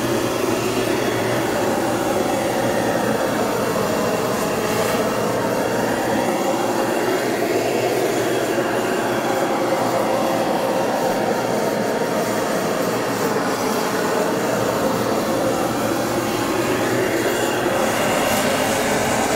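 Hose-fed gas torch burning steadily with a rushing hiss while its flame is played over a steel meat slicer, with slow sweeps up and down in tone.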